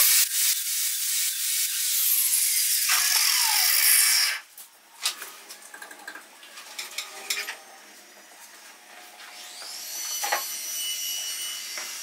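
Electric angle grinder with a flap disc grinding metal, a loud steady hiss that cuts off about four seconds in. Then light clicks and clatter of the tool being handled and set on a wooden bench, and near the end a thin high whine that rises and then holds steady.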